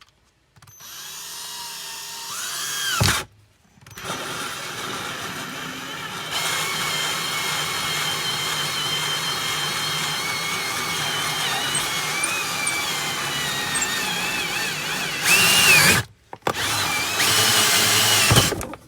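Power drill turning a 2 1/2-inch carbon steel hole saw and cutting through linoleum flooring. The motor spins up, stops briefly about three seconds in, then runs steadily through the cut. It gets louder partway through, stops again near the end and starts up once more briefly.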